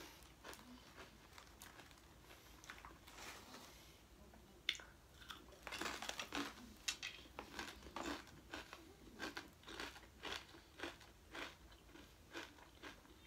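Potato chips, Good Health avocado oil chips, being bitten and chewed close to the microphone. Faint crinkling of the chip bag comes first, then a run of crisp crunches, about two or three a second, from about the middle on.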